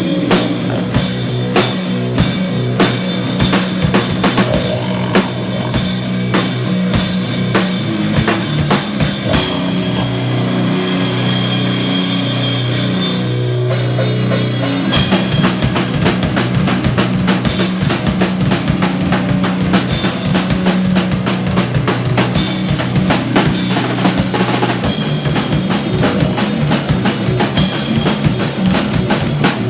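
Live heavy rock band playing loud, with a busy drum kit over sustained low guitar and bass notes. The drumming gets faster and denser about halfway through. The vocalist uses guttural grunting in place of sung lyrics, likened to a pig's grunting.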